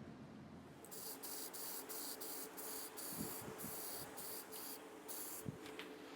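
Spray putty (filler primer) being sprayed onto the repaired glider nose in a string of short hissing bursts, from about a second in until near the end.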